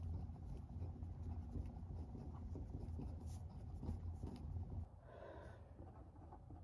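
Ballpoint pen scratching across lined notebook paper in steady handwriting strokes, over a low steady hum. About five seconds in the scratching stops and it drops quieter, with a brief soft rustle.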